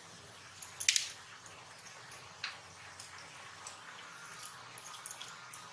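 Small clay cup clinking against a miniature clay pot as rice is tipped in. There is a sharp cluster of clicks about a second in, another click a moment later, and light ticking of grains.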